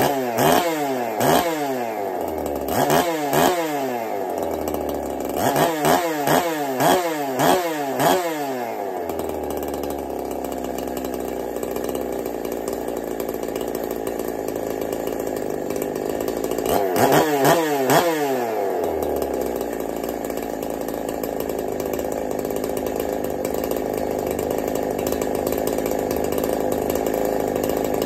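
Ported Neotec NH872 two-stroke chainsaw, newly assembled and just started, idling while its throttle is blipped in quick rev-ups: a couple near the start, a run of five a few seconds later, and three more past halfway, then a steady idle.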